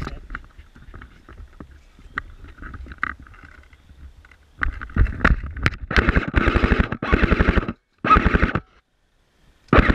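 Airsoft electric guns firing on full auto: from about halfway in, several bursts of rapid, evenly spaced shots, the longest lasting well over a second, with short pauses between. Before them, only faint scattered clicks and knocks.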